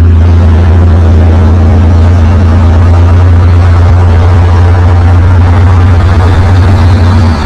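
Loud, steady low drone of a vehicle engine and road noise, heard from inside a moving vehicle's cab.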